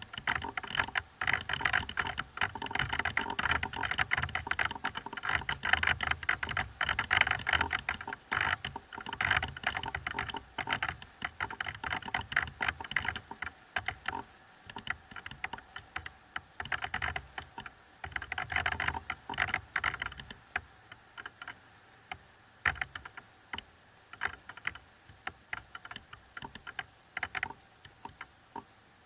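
Dense, irregular clicking and crackling that thins out after about twenty seconds into scattered single clicks.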